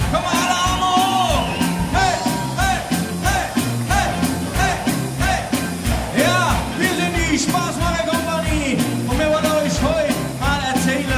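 Live band playing an upbeat song, with a horn section of saxophone, trumpet and trombone, electric guitar, keyboard and drums, and a lead singer's voice over a steady, fast drum beat.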